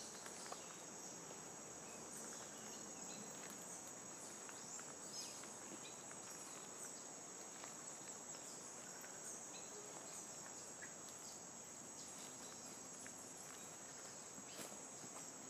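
Faint, steady high-pitched drone of rainforest insects, with a few faint ticks.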